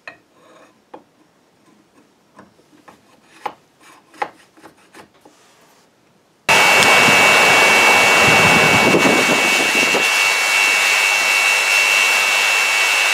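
Light knocks and taps of wood against a metal bench vise as a cherry handle blank is clamped in it. About six and a half seconds in, a sudden cut to the loud, steady rush of an open trough forge blown hard with air, with a high steady whine over it.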